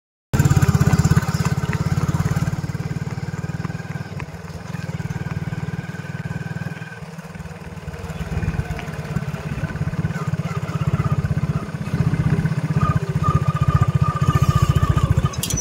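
A motorcycle engine running steadily at low speed close to the microphone, a rapid even chugging that dips slightly midway and then rises again.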